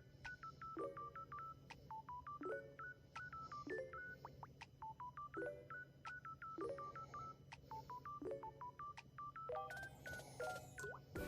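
Electronic background music made of short, clear beeps that step up and down in pitch in a repeating phrase, several beeps a second, over a low steady hum.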